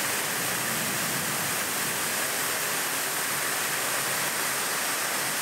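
Heavy rain and floodwater rushing through the street, a steady, even hiss.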